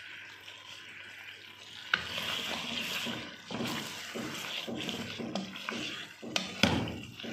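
Wooden spoon stirring cream into chicken frying in a metal pan: sizzling, with the spoon scraping through the food and against the pan, the stirring getting busier about two seconds in. A few sharp clicks of the spoon on the pan near the end.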